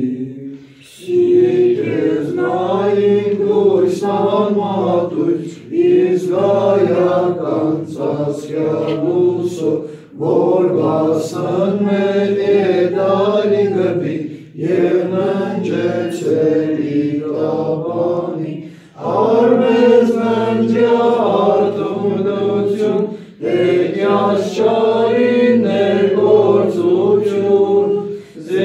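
Armenian church hymn chanted a cappella, sung line by line in phrases of about four seconds, with short breaks for breath between them.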